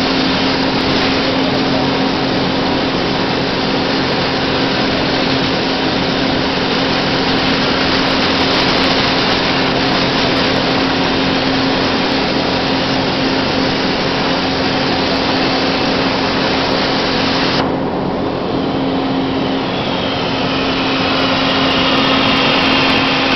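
Hypertherm Powermax 1650 plasma arc cutting steel plate on a CNC table: a loud, steady hiss over a steady low hum. About three-quarters of the way through the hiss cuts off suddenly as the arc stops, leaving the hum and a fainter high whistle.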